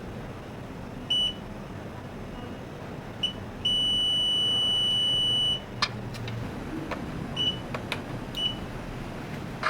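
MaAnt XJ-5 repair tool beeping electronically at one high pitch: a few short beeps and one long steady beep of about two seconds. Several sharp clicks sound in the second half.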